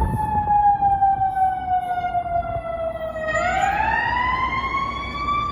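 Fire engine siren wailing. Its pitch falls slowly for about three seconds, then climbs back up, over a low rumble.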